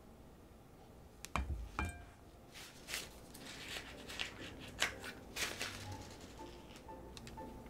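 Two light knocks with a short ring, then crinkling and rustling as a disposable piping bag filled with choux dough is handled and twisted.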